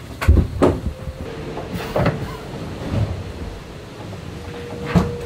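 Several knocks and thumps inside an IMOCA 60 racing yacht, the loudest near the end, over steady hull and water noise, with a steady humming tone coming in after about a second.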